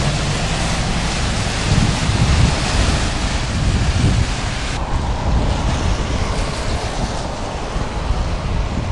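Wind buffeting the microphone, a fluctuating low rumble, over a steady rushing hiss. The hiss cuts off abruptly about five seconds in, leaving mostly the wind rumble.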